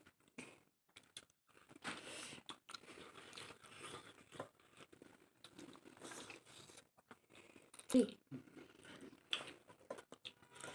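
A person chewing and crunching food, with many small irregular clicks, and one louder thump about eight seconds in.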